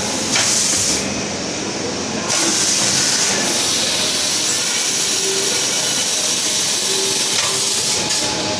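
Vertical airless packaging machine running with loud hissing: a short burst near the start, then a long steady hiss from about two seconds in until near the end.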